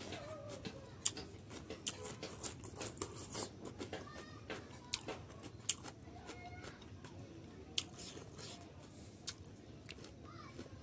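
Close-up eating sounds: a man chewing and crunching green beans, with many sharp wet mouth clicks and smacks throughout.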